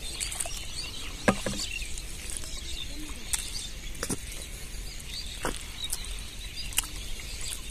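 Scattered sharp taps and knocks, about half a dozen, from a small caught fish and hands moving in a plastic bucket while the fish is dropped in and worked off the hook. Birds chirp steadily in the background.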